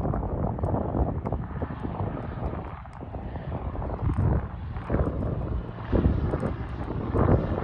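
Gusty wind buffeting the microphone: a low, uneven rumble that swells and dips.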